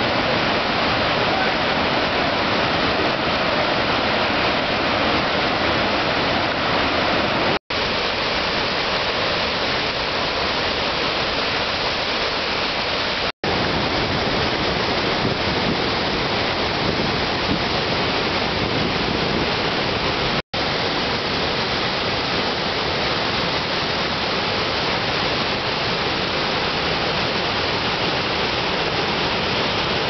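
Gullfoss waterfall: a loud, steady rush of river water pouring over the falls. It cuts out for an instant three times, where shots are joined.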